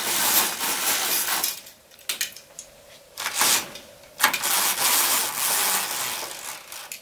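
Fabric roller blind being raised by hand: a rubbing, sliding noise in two long stretches, with a few clicks between them.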